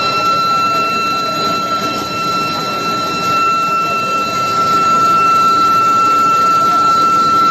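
Induction billet heater running: a steady high-pitched electrical whine from the induction coil and its power supply, held on one pitch over continuous factory machinery noise.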